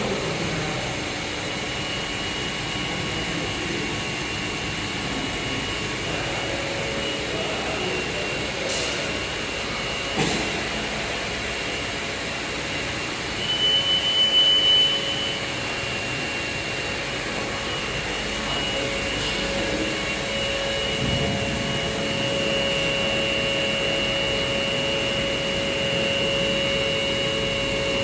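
Beiping T6A CNC tool grinder running, a steady machine noise with a high, even whine, growing briefly louder about halfway through.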